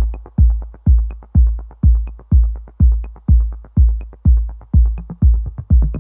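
Electronic intro music: a deep kick drum with a falling bass tone about twice a second, and a light high tick once a second. Extra hits fill in between the beats near the end.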